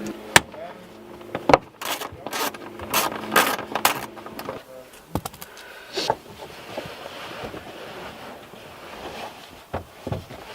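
A quick run of sharp clicks, knocks and scrapes, thickest in the first four seconds and sparser after: rear-seat trim and seat parts being handled and worked loose inside a car.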